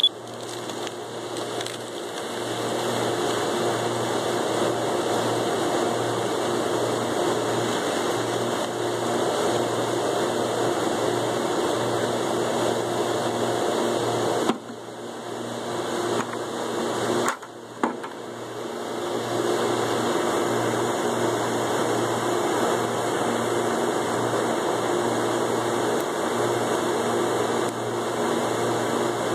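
A motor running steadily with a low, slightly pulsing hum and a hiss, dipping briefly twice about halfway through.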